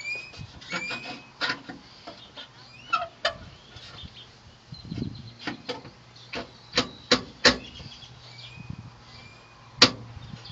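Sharp clicks and knocks, about a dozen spread irregularly, the loudest near the end, as a car speaker is handled and fitted into its mounting hole and bracket.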